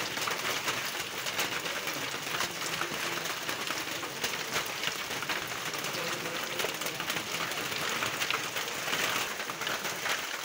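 Steady rain falling on wet pavement: a dense, even hiss of drops with many small ticks.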